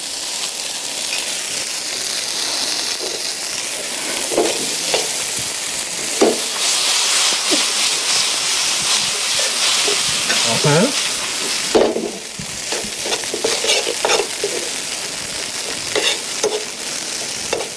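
Sliced bell peppers, eggplant and tomato sizzling in oil in a hot frying pan with ketchup just added, while a utensil stirs and scrapes them around the pan in short strokes.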